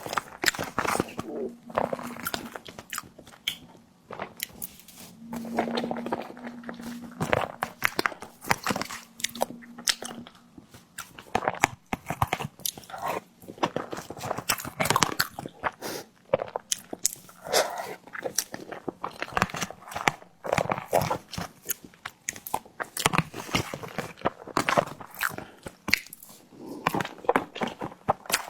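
Someone eating a tiger skin dessert: repeated crunchy bites and chewing, in irregular sharp crackles.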